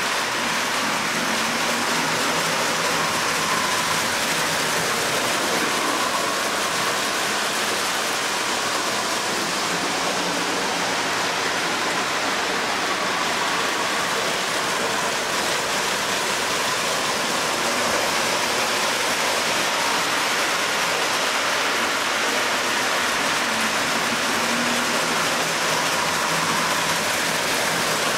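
Steady rushing rolling noise of O gauge three-rail model trains running on metal track, with a faint wavering motor whine in it.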